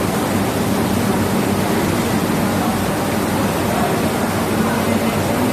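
A steady, even rushing hiss with a low hum underneath, unchanging throughout.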